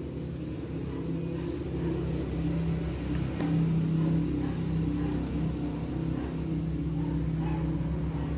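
A motor running with a steady low hum, growing a little louder over the first few seconds and then holding level.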